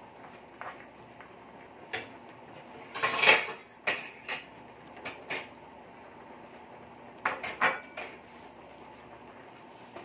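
A metal utensil knocks and scrapes against a frying pan as a cream sauce is stirred. The clatters come in short bursts, the loudest about three seconds in and another cluster near the end, over a faint steady background hiss.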